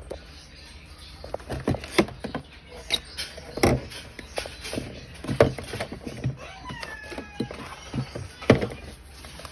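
Drinks and packaged snacks being handled and set into a refrigerator: a run of irregular knocks and clatters, with a brief squeak about seven seconds in.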